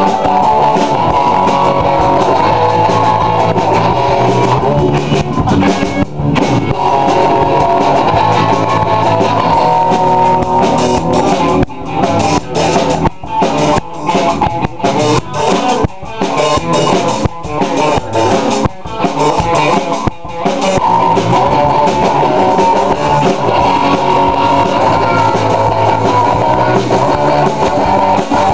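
Rock band playing guitars and drums, loud and full. About twelve seconds in, the band plays a run of short stop-start hits for several seconds, then goes back to steady playing.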